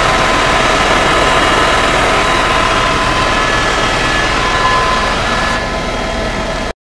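A loud, steady mechanical hum with several held tones over a rushing noise. It cuts off abruptly near the end.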